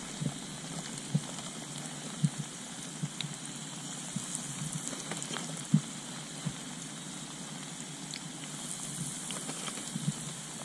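Breaded crappie fillets deep-frying in hot oil: a steady sizzle with scattered sharp pops.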